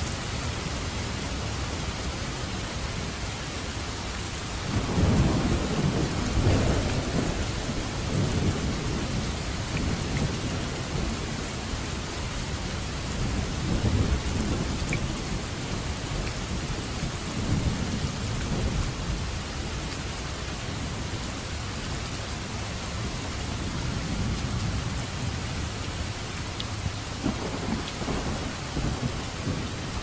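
Steady rain with several low rolls of thunder rising out of it, the loudest about five seconds in and again around the middle.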